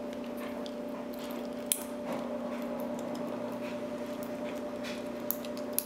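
Light metallic clicking and scraping of a Bogota rake worked through the pins of a small pin-tumbler padlock, with a few sharper clicks, one a little under two seconds in and two near the end, over a steady low hum.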